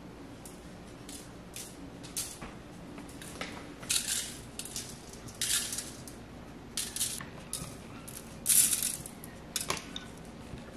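Dry seasoning being shaken out of a container over raw pork cutlets: a series of short, crisp rattling shakes, the loudest about eight and a half seconds in.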